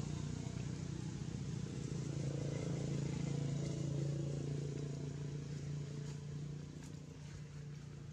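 A motor engine running steadily, a low hum that eases off over the last few seconds.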